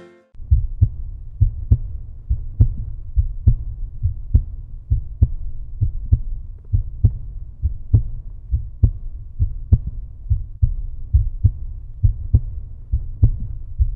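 Low, thudding, heartbeat-like pulse from an end-of-video soundtrack, about seventy beats a minute with softer beats between. It cuts off abruptly at the end.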